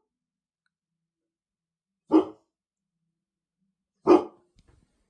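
A dog barking twice, single sharp barks about two seconds apart.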